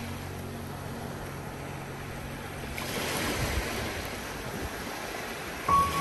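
Sea surf: waves washing in and breaking on the shore, with the wash swelling about three seconds in.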